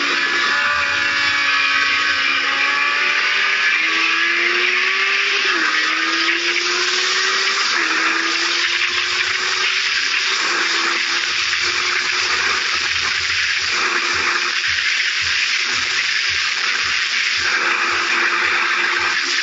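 Kawasaki Z750 inline-four engine pulling hard on the track, its pitch climbing through each gear and dropping suddenly at upshifts about five, eight and ten seconds in, under heavy wind rush over the microphone.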